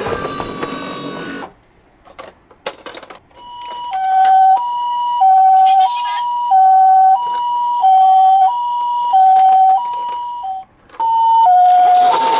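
Background music cuts off about a second and a half in and a few light clicks follow. Then an ambulance's two-tone hi-lo siren of the Japanese "pee-po" type starts, from a toy ambulance, switching evenly between a higher and a lower tone about every two-thirds of a second.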